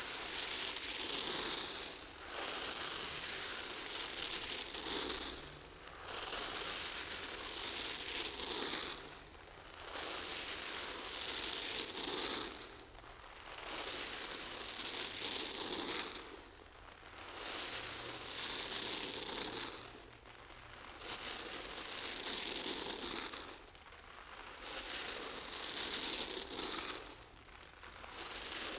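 A stream of rice grains pours from a swinging cone-shaped pendulum and patters onto crumpled paper and gold foil sheets in a continuous crinkling rain of grains. It swells and dips in a regular cycle about every three and a half to four seconds as the pendulum swings.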